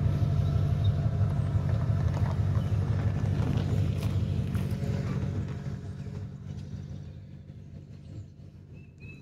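Engine of a red Ford pickup truck running at a steady idle, a low hum that grows fainter over the last few seconds.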